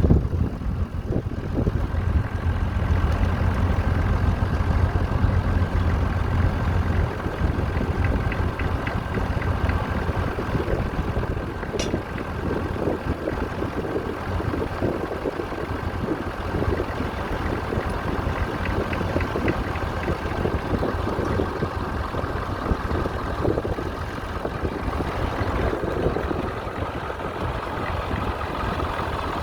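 Ferguson FE35 tractor engine running steadily.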